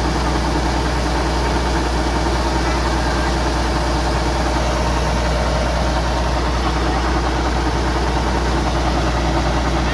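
Kubota DC-105X combine harvester running steadily while harvesting rice: an even, unbroken engine drone.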